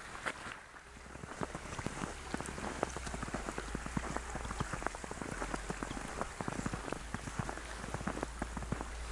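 Small creek trickling and splashing over stones, heard as a dense, irregular patter of small splashes that settles in about a second in.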